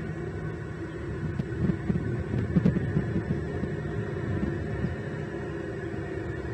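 Steady low hum and rumble from a bald eagle nest-cam microphone, with a run of louder low bumps about one and a half to three seconds in.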